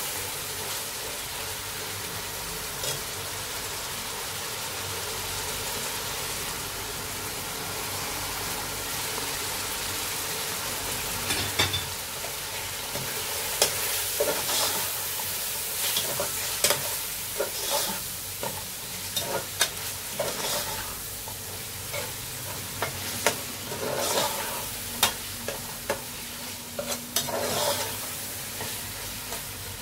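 Minced beef sizzling in fat in a large metal pot while a metal spoon stirs it, scraping and clicking against the pot. The scrapes and clicks come often from partway through.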